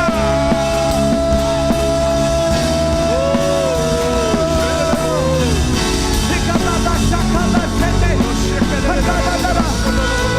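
Loud worship music from a band with singing: one voice holds a long note for about five seconds, then several voices wail and sing over the steady band.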